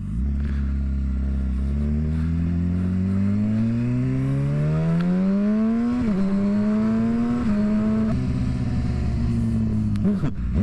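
Suzuki GSX-R750's inline-four engine pulling hard up through the revs, with a sharp drop in revs about six seconds in as it upshifts through its quickshifter. It carries on pulling steadily after that, with a couple more steps in revs and quick rises and falls in revs near the end.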